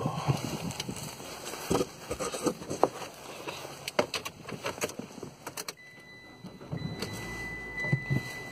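Handling noises inside a parked Mitsubishi car: scattered clicks and knocks, then about six seconds in a steady high electronic warning tone from the car starts and holds.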